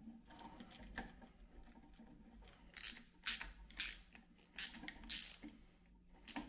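Faint clicks and short scraping strokes of a screwdriver turning the ground screw on a wall switch to clamp the ground wire. The strokes come in a quick series from about three seconds in.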